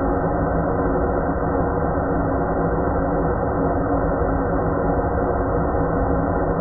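Steady ambient noise bed: an even, muffled drone with a low hum of several steady tones underneath. Nothing starts, stops or changes.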